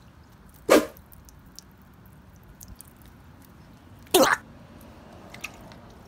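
Two short slaps about three and a half seconds apart as squishy toys are set down on wet concrete.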